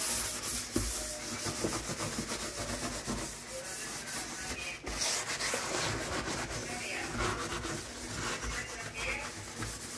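Stainless steel sink being scrubbed with soapy cleaner by a gloved hand: a continuous rubbing, scouring sound in quick repeated strokes.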